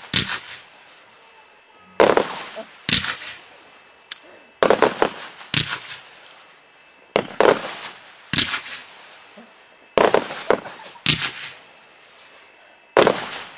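Display fireworks being fired in repeated volleys, about every two and a half seconds. Each volley is a cluster of sharp bangs from shots and bursts that trails off before the next one.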